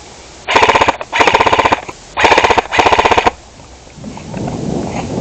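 S&T AK105 airsoft rifle firing four short full-auto bursts in quick succession, each a rapid string of shots. A lower, rough noise follows near the end.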